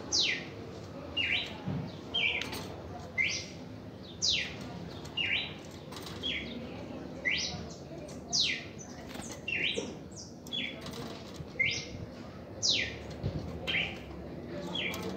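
Red-crested cardinal singing a run of short, clear whistled notes, about one to two a second, alternating quick downward and upward sweeps. Wing flapping as the bird flutters about the wire cage.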